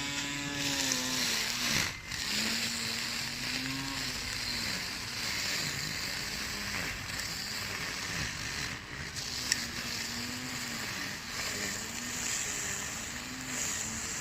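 Small lawn mower's motor running steadily with a whirring hiss, its pitch sagging and recovering several times as it takes on load while cutting.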